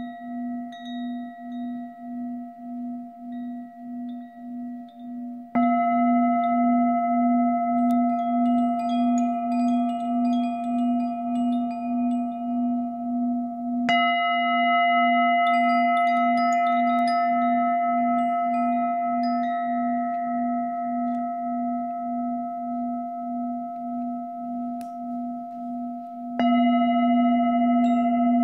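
Singing bowl struck three times and left ringing, its low tone wavering in a slow steady pulse and its higher overtones fading slowly after each strike. A light tinkle of small chimes sounds between the second and third strikes.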